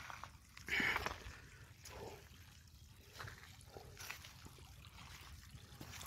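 Faint trickling of shallow water, with a brief louder burst of noise about a second in.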